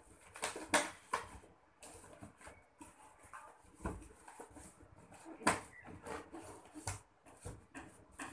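Inflated latex balloons rubbing and squeaking against one another as they are pressed and twisted together into a cluster, in short irregular squeaks.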